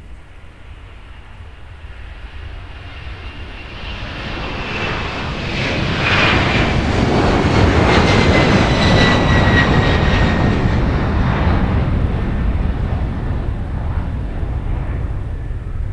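Jet airliner's engines at takeoff power passing by. A deep rumble swells to a peak about halfway through, then eases, and a high engine whine falls in pitch as the aircraft goes past.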